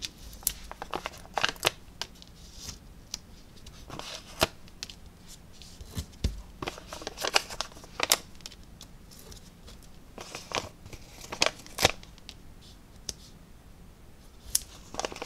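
Cardstock and a sheet of foam adhesive dots rustling and clicking as the dots are peeled off their backing and pressed onto a paper piece. The small handling noises come irregularly, with a soft thump on the table about six seconds in.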